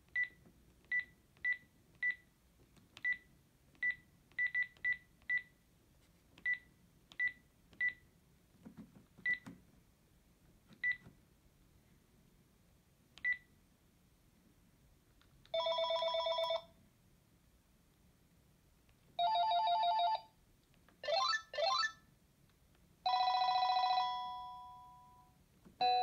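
Panasonic KX-TGA653 cordless phone handset: a string of short, high key beeps as its buttons are pressed through the menu, then, from a bit past halfway, ringer-tone previews: four short electronic ringing tones a few seconds apart, one of them two quick rising sweeps.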